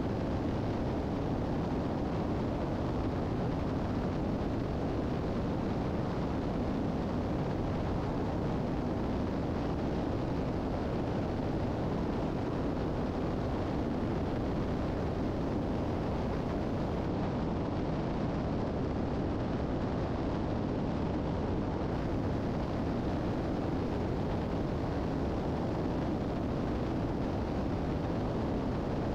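Steady cabin drone of a Piper Seneca III's twin engines and propellers on final approach, unchanging throughout.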